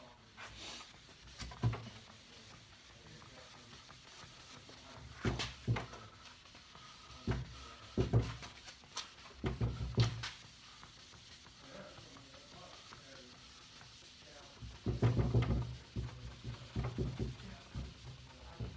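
A lambswool polishing pad rubbed by hand over a waxed pine tabletop, giving irregular swishing strokes and soft thuds against the wood. There is a run of quicker, heavier strokes about fifteen seconds in.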